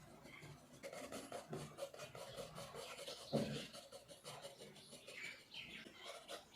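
Pencil scratching on paper in quick repeated sketching strokes, with one louder thump a little past halfway.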